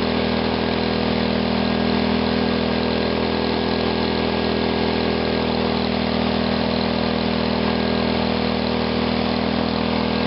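Small engine fed through a GEET reactor running steadily, held at high revs with an even tone. Its carburetor is set so it holds these revs without flooding.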